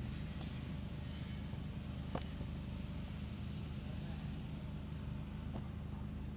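A steady low motor hum, with two faint ticks, one about two seconds in and one near the end.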